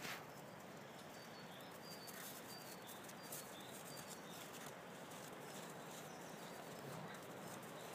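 Faint outdoor ambience: small birds chirping in a string of short high notes, with light scuffling of paws in snow.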